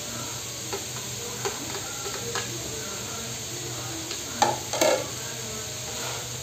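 Diced vegetables, ham and chicken frying with a steady low sizzle in a nonstick wok, with a few soft clicks. A couple of louder knocks and scrapes of the spatula in the pan come about four and a half seconds in, as stirring starts.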